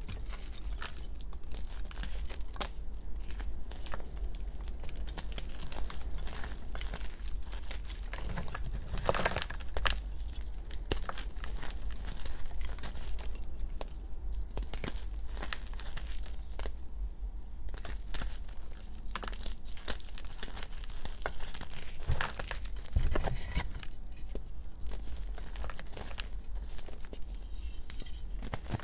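Reformed gym chalk discs being crumbled and crushed by hand: dry, irregular crunching and crackling of chalk chunks and loose powder, with a few louder crunches along the way, over a low steady hum.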